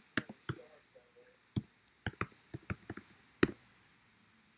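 Computer keyboard typing: about a dozen quick, irregular key clicks, ending with one louder click about three and a half seconds in.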